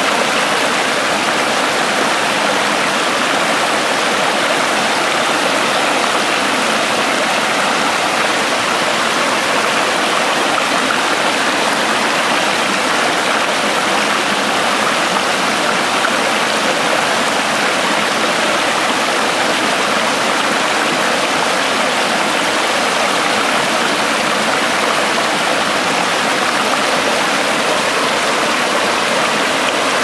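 Small waterfall pouring over rock and splashing into the pool below: a steady, unbroken rush of water.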